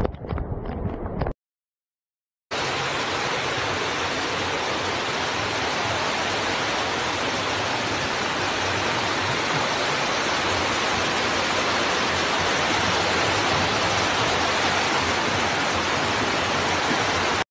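Steady, even rushing noise of torrential rain and flowing floodwater. It comes in after a brief burst of louder, churning water noise that cuts off to a second of dead silence.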